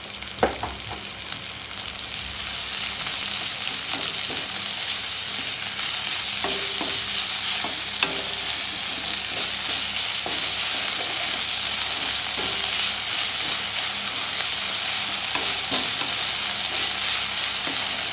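Sliced onions and ginger garlic paste sizzling in hot oil in a metal kadai, stirred with the utensil scraping and clicking against the pan. The sizzle grows louder about two seconds in.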